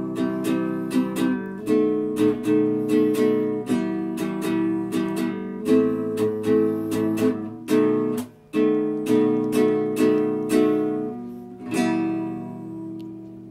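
Recorded acoustic guitar accompaniment strumming chords in a steady rhythm, with a short break about eight seconds in. It closes on a final chord about twelve seconds in that rings out and fades.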